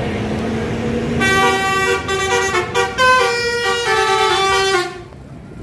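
Indonesian bus 'telolet' horn, a multi-tone musical horn, playing a quick run of changing notes for about three and a half seconds over a vehicle rumble. It starts about a second in and cuts off suddenly near the end.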